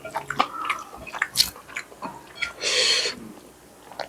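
Close-miked mouth sounds of a person chewing a mouthful of rice and fish curry: wet smacks and small clicks, with a short hiss about two-thirds of the way through.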